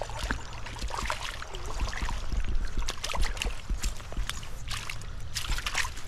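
Small creek's water trickling and splashing, with many irregular short splashes over a steady low rumble.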